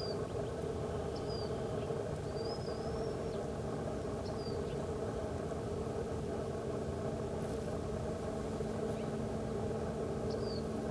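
Steady low machine-like drone with a faint steady hum under it, and a few short, thin, high chirps from a bird scattered through it, one of them longer.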